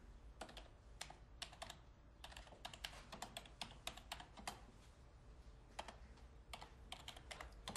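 Typing on a computer keyboard: quick irregular runs of soft key clicks, broken by short pauses, the longest a little after the middle.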